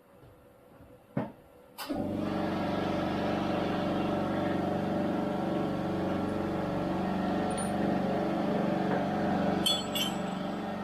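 Tomahawk Pro CNC machine: quiet at first, one click about a second in, then it starts up at about two seconds and runs steadily with a layered hum of several held tones. A few sharp clinks near the end.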